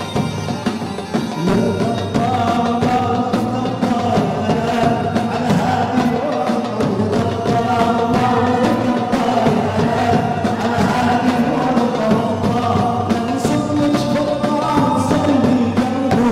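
Live Arabic song with orchestra: several men's voices singing together in a chant-like chorus over strings and a steady beat.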